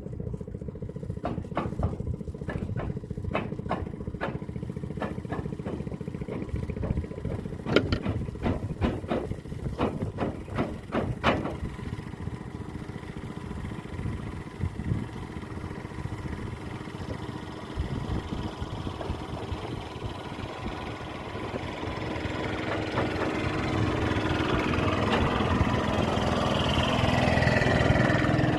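A small engine running steadily, with a run of sharp knocks or clicks in the first half, and growing louder toward the end as if coming closer.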